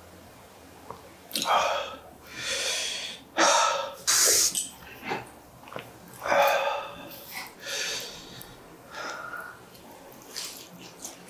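Mouth noises of eating spicy chicken feet: a run of short, loud sucking and slurping sounds and sharp breaths, one after another.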